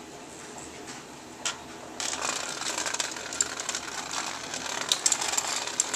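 Hexbug Nano vibrating robot bugs switched on and buzzing as they rattle along the plastic raceway track, starting suddenly about two seconds in after a single click.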